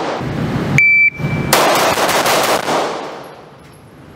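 A short high electronic beep, like a shot timer's start signal, about a second in, then a rapid string of 9mm shots from a compensated Atlas Gunworks Erebus 2011 pistol that echo and fade out.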